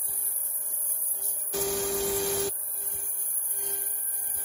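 CNC router spindle milling a block of wood: a steady high hiss with a low hum, and a louder, rougher cutting noise for about a second near the middle.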